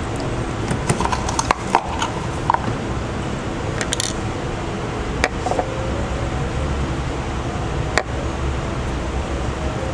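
Small clicks and taps of a smartphone's parts being handled and pressed together during reassembly, over a steady background hiss. One cluster of clicks comes about one to two and a half seconds in, and single sharper taps come near four, five and eight seconds.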